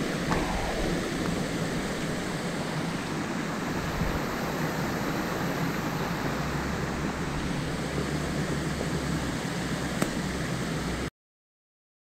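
Steady rushing of flowing water at a river pool, with a low rumble underneath; it stops abruptly near the end.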